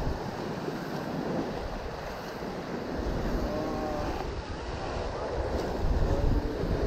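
Ocean surf washing on a rocky shore, with gusty wind buffeting the microphone in a low rumble that grows stronger about halfway through and again near the end.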